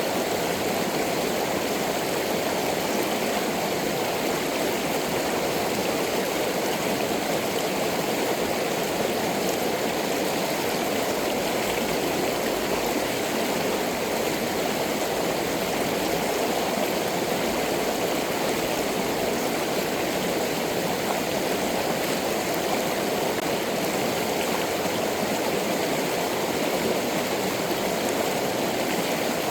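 Stream water rushing steadily, an even, unbroken flow.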